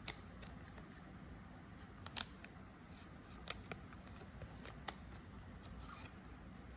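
Trading cards being handled: a few faint, sharp clicks and brief slides of card stock, spaced a second or so apart.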